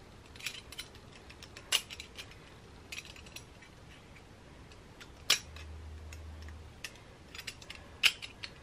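Small metal clicks and clinks as the rotisserie spit and fork of an Ultrean air fryer oven are handled and fitted together, scattered and irregular, with a sharper click about five seconds in.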